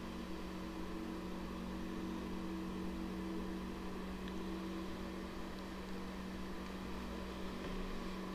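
A steady low hum over faint hiss, with no speech.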